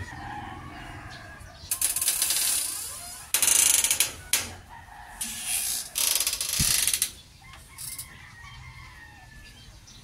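A sliding screen door rattling along its track in several strokes: one about two seconds in, a louder one around three and a half seconds, and more around five to seven seconds.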